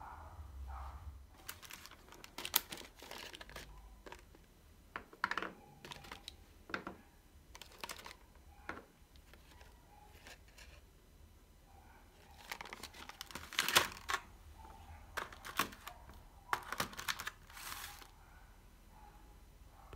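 Thin clear plastic cookie tray crinkling and clicking as chocolate-covered cookies are lifted out of its cups and handled, in irregular sharp clicks with a denser, louder cluster a little past the middle.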